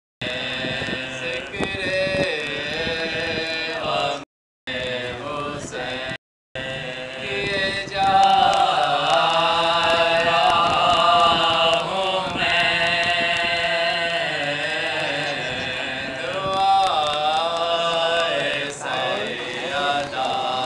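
Men chanting a marsiya, a mourning elegy, in a slow, melodic sung recitation with long held notes. The sound cuts out completely twice, briefly, about four and six seconds in.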